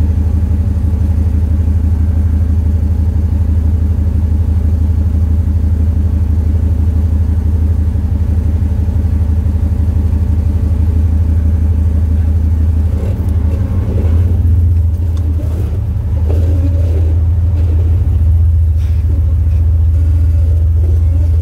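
Off-road vehicle's engine running steadily at low revs as it crawls slowly over rock, a loud low drone. Over the last third there are a few short knocks and scrapes.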